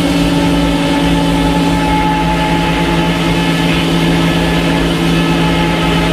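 Engine running steadily at a constant speed, with an even, unchanging hum.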